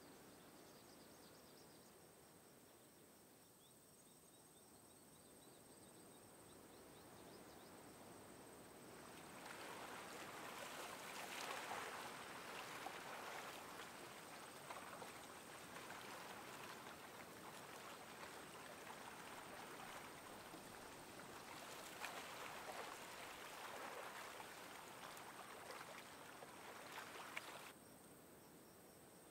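Near silence for about the first nine seconds, then a faint outdoor rushing ambience by the lake shore that swells and eases in waves, dropping back to near silence shortly before the end.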